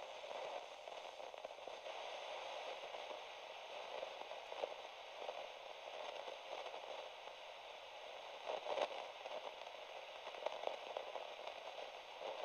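Faint, steady crackling static hiss with scattered pops, one sharper pop about nine seconds in.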